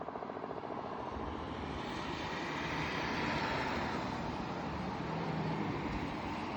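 Steady engine noise that swells to a peak about three seconds in, then eases slightly.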